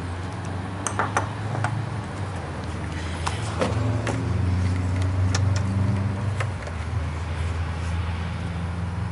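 A steady low machine drone, a little louder in the middle, with a few light clicks and clinks of parts and tools being handled in the first half.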